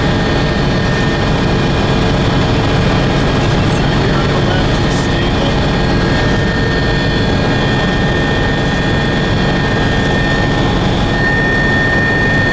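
Turbine aircraft engines running steadily in flight: a loud, even rush with a constant high whine over it.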